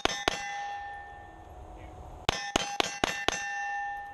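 Pistol shots fired in quick strings, about four a second, hitting steel targets that ring after each hit: two shots ending one five-shot string at the start, then a second string of five about two seconds in, the steel ringing on after the last shot.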